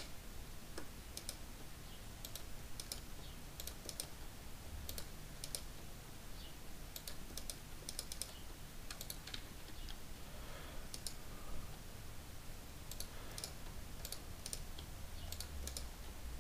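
Scattered clicks from a computer keyboard and mouse while editing a 3D mesh: short, irregular taps, often in pairs, about one or two a second, over a faint low hum.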